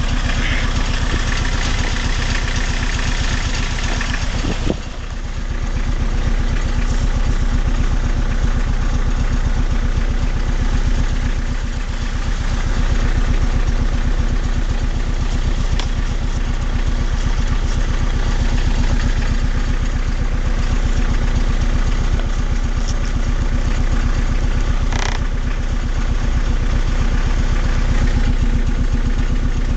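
BMW E36 318tds's four-cylinder turbodiesel idling steadily with diesel clatter. A higher whining tone rides over it for the first four seconds or so, then drops away. The owner hears an annoying noise from the front of this engine at idle only, and has not found its cause.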